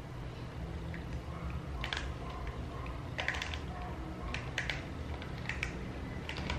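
A bar of soap being grated on a small stainless-steel hand grater: a handful of short, irregular scraping strokes from about two seconds in, over a steady low hum.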